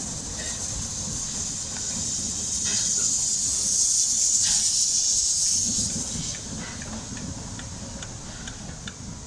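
Steam hissing from USATC S160 2-8-0 steam locomotives passing beneath, over a low rumble. The hiss swells toward the middle and fades after about six seconds, with a few faint clicks near the end.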